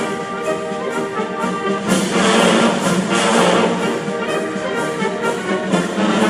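Orchestral music with brass to the fore, playing held chords.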